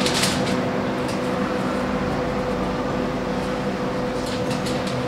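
A steady mechanical hum with a constant low drone, its machine unnamed, and a few soft rustles and clicks as a paper towel is wiped over a raw rack of pork ribs at the start and set down near the end.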